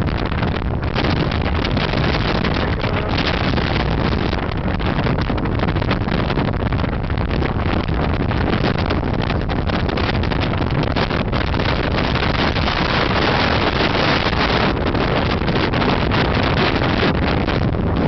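Strong wind buffeting the camera's microphone: a loud, continuous rushing rumble with no let-up.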